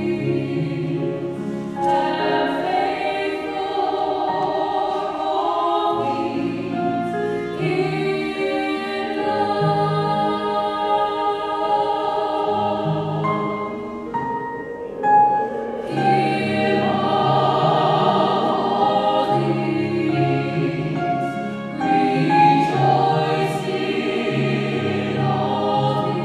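Small mixed-voice choir singing a slow piece in sustained, close harmony, the chords moving every second or two, with a short break about two-thirds through before the voices swell again.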